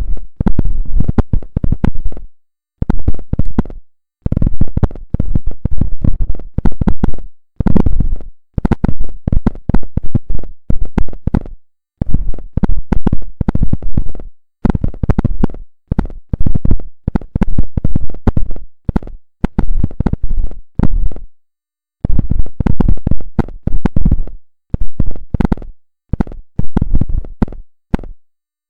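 Loud buzzing, crackling noise: rapid pulses in runs of one to three seconds, each run cut off abruptly by a short, dead-silent gap. This is the recorded 'za-za' buzz that sounded from a refrigerator together with a Morse-code-like signal.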